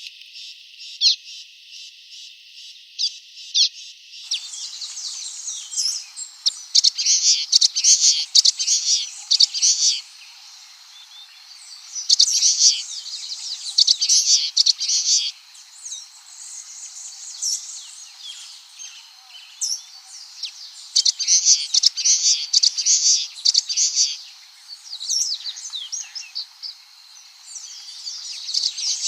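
Common waxbill (bico-de-lacre) twittering: rapid high-pitched chirps that come in several loud bursts with quieter chirping between them.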